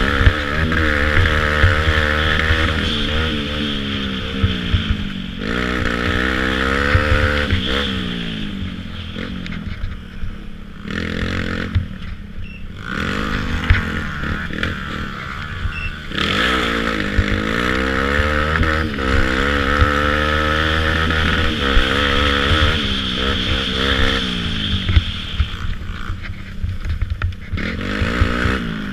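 Youth ATV engine heard from on board while racing, revving up and down as the throttle opens and closes, with lulls off the throttle around ten seconds in and again near the end. Occasional sharp knocks come as the machine goes over rough trail.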